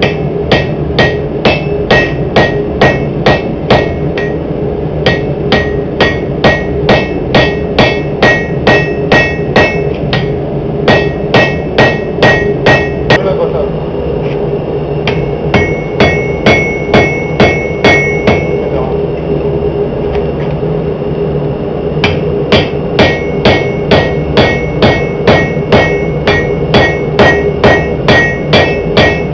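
Hand hammer blows forging a steel tomahawk head on an anvil, about two to three strikes a second in runs broken by short pauses, each blow with a ringing tone. A steady hum runs underneath.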